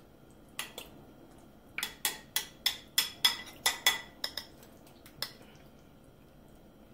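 A spoon clinking and scraping against a ceramic bowl of guacamole: a few lone clinks, then a quick run of about a dozen, roughly three a second, each with a short ring, and one last clink a little after five seconds.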